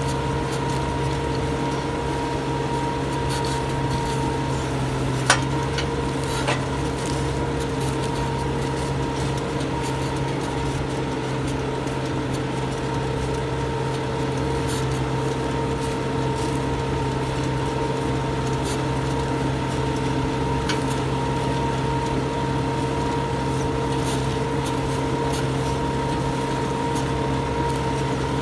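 Case JX100 tractor's diesel engine running steadily under load while pulling a subsoiler through the soil, with two sharp knocks a little over a second apart about five seconds in.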